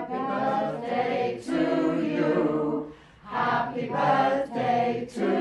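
A small group of men's and women's voices singing together without accompaniment, in held phrases with a short break about three seconds in.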